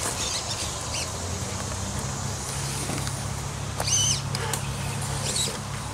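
Electric RC rock crawler's motor and geared drivetrain running at crawl speed as it climbs over stones, a steady low hum, with a few short high chirps, the loudest about four seconds in.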